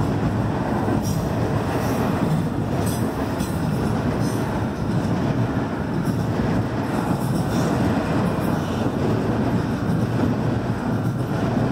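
CN double-stack intermodal container train passing at speed: a steady, loud rumble of steel wheels on rail as the container-laden well cars roll by.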